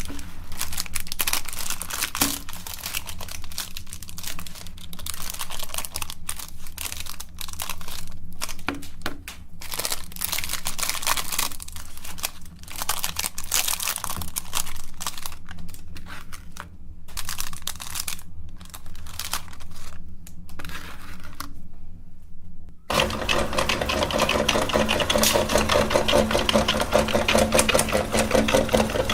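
Electric meat grinder running, its motor humming steadily under irregular crackling as ice cream is forced through the auger and plate, with brief pauses. About 23 seconds in, the grinder's running becomes louder and more even, a steady mechanical drone.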